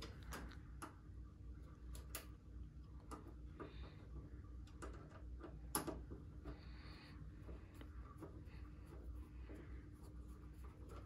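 A hand screwdriver driving a screw into a stove's sheet-metal back plate: faint, scattered clicks and scrapes of the bit and screw against the metal, with one sharper click about halfway through.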